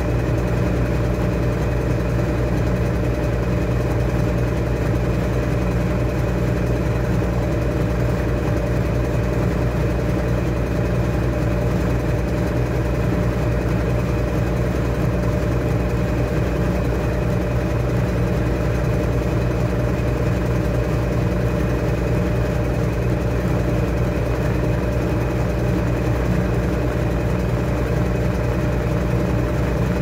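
Top-loading washing machine with a central agitator running mid-cycle: a steady mechanical hum with vibration that does not change.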